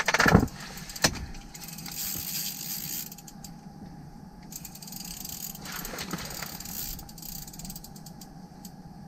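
A knock, then an ice-fishing spinning reel being cranked in spells, its gears whirring with fast fine clicks, as a hooked perch is reeled up through the ice hole.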